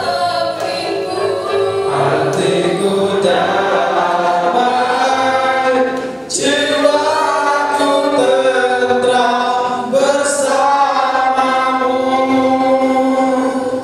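A group of voices singing a slow Indonesian song together, one led through a microphone, with long held notes and a brief pause about six seconds in.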